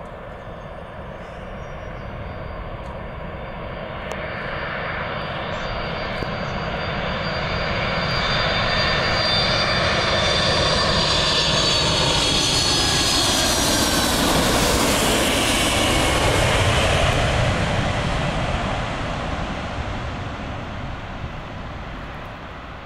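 A Boeing 747's four jet engines passing low overhead on approach: the engine noise swells to a peak about two-thirds of the way through, with high whining tones sliding down in pitch as it passes, then fades as it moves away.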